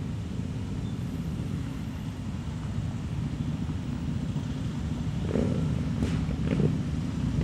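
Several motorcycles riding slowly past at low revs, their engines running steadily and getting louder near the end, with a few brief bursts of throttle.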